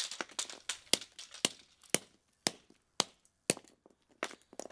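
A string of sharp cracks and knocks, roughly two a second, as a golf club strikes the broken HPM exhaust fan's shaded-pole motor and plastic pieces on concrete.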